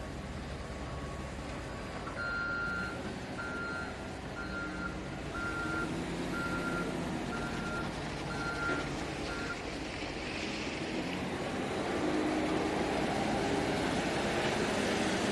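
A vehicle's reversing alarm beeping about eight times, roughly once a second, over a steady rumble. The rumble grows louder after the beeping stops.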